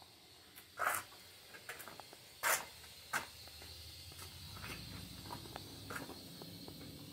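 A few scattered sharp knocks and clicks, the loudest about a second in and again about two and a half seconds in. A low steady hum comes up after about four and a half seconds.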